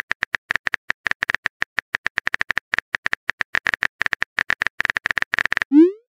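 Phone keyboard tap clicks as a text message is typed, an irregular quick run of short clicks, several a second. Just before the end a short rising swoosh as the message is sent.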